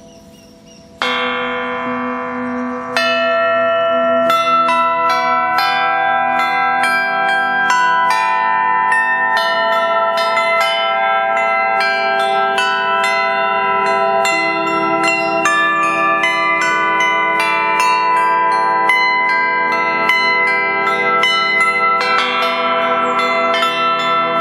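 Church bells ringing: a single strike about a second in, another two seconds later, then many bells struck in quick succession, several strokes a second, their tones overlapping and ringing on.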